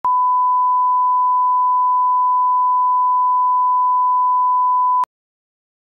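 Broadcast line-up reference tone played with colour bars: one steady, pure beep that cuts off suddenly about five seconds in.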